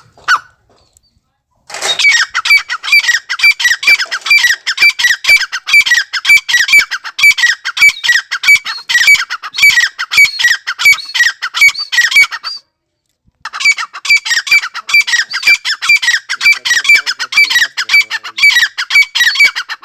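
A teetar (francolin) calling, a loud, harsh call repeated rapidly and without pause. The calling starts about two seconds in, breaks off briefly after about twelve seconds, and resumes.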